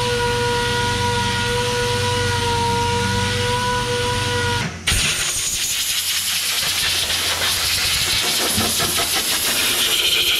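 Orbital sander running with a steady whine as it sands down body filler, cutting off about five seconds in. Then compressed air hisses steadily from an air blow gun blowing the sanding dust off the panel.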